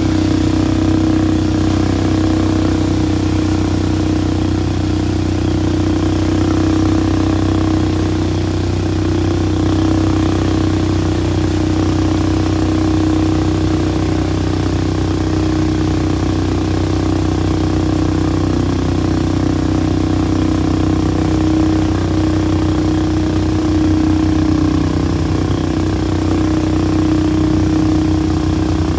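ATV engine running steadily at an even, unchanging speed.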